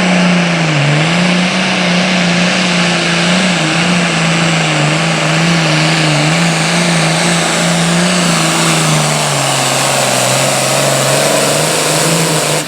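Super Farm class pulling tractor's diesel engine running hard under load down the track, one loud continuous note that wavers and drops slightly lower about three-quarters of the way through.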